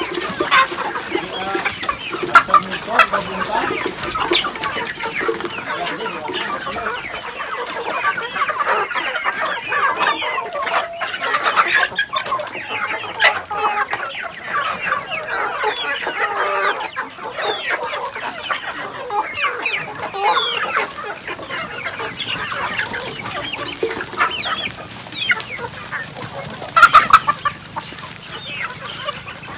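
A large flock of chickens clucking and squawking together, many birds calling over each other, with one louder call near the end.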